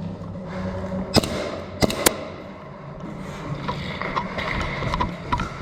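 Three sharp cracks, the first about a second in and two close together near two seconds, over a steady low hum, followed by a series of lighter clicks.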